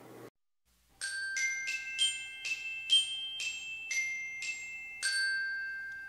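A short outro jingle of about ten bright, bell-like struck notes on a glockenspiel-type instrument, starting about a second in. The notes ring over one another, and the last one rings out and fades.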